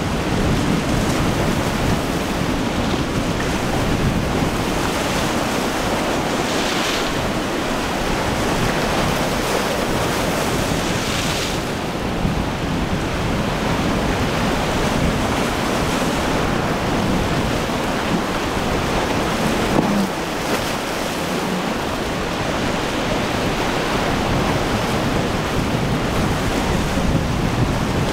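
Rough surf breaking and rushing steadily, with wind buffeting the microphone.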